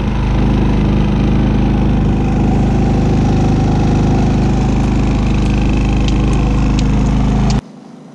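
Predator 3500 inverter generator running steadily at close range, an even engine hum that cuts off suddenly near the end.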